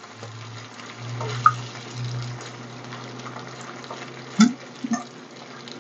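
Eggs sizzling as they fry in a hot wok with bacon, while a silicone spatula beats and scrambles them against the pan. A few short knocks near the end.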